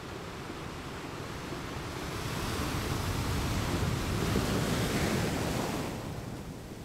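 A rushing noise of an intro sound effect that swells to a peak about four seconds in, then fades away near the end.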